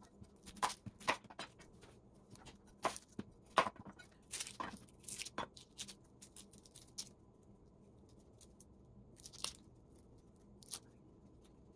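Dry onion skin crackling and tearing as it is peeled off an onion by hand: faint, irregular snaps and crackles, busier in the first half and sparser towards the end.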